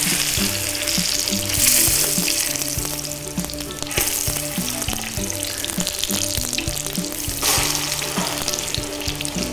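Ripe plantain pieces frying in hot oil in an electric skillet, sizzling steadily, louder around two seconds in and again near the end.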